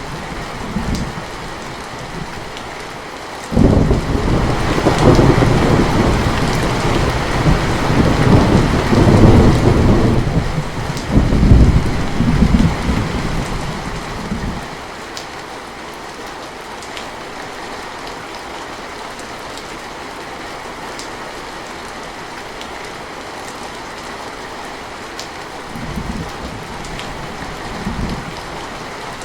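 Steady rain hiss, with a roll of thunder that breaks suddenly about three and a half seconds in, rumbles in several surges for about ten seconds and dies away. Two short, fainter low rumbles come near the end.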